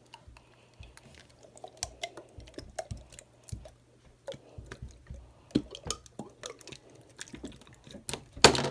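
Blue slime being shaken and squeezed out of an upturned plastic squeeze bottle: a run of small wet clicks and squelches, ending in one loud splat about eight seconds in as the slime and the small toys inside it land on the table.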